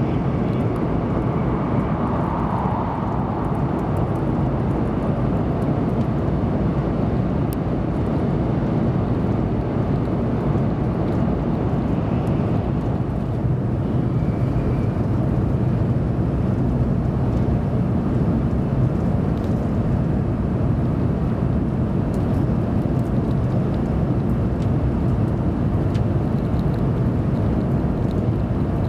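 Steady running noise inside the passenger cabin of a 700 series (3000 subseries) Shinkansen at speed: an even low rumble with a hiss over it.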